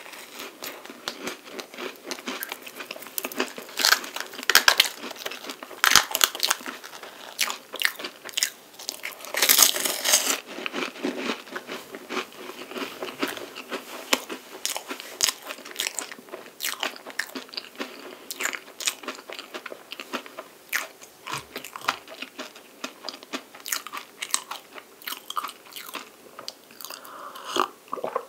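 Close-miked crunching and chewing of a flaky, chocolate-coated palmier carré puff pastry. The crisp crackles come thickest in the first ten seconds or so, then thin out to softer chewing.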